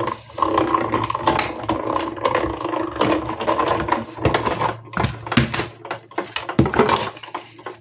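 Die-cutting machine running the cutting plates through and back in one pass, a steady mechanical whir for about four seconds. Then a few sharp clicks and knocks as the plastic plates are pulled out and handled.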